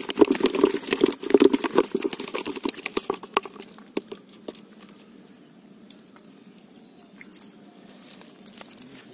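Small live fish flapping inside a wet cast net on mud: a rapid wet patter of slaps and flicks, dense for the first three seconds or so, then thinning to a few faint ticks.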